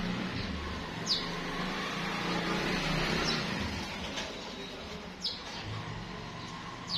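Cockatiels giving a few short, high chirps that slide downward, spaced about two seconds apart, over a steady background hiss.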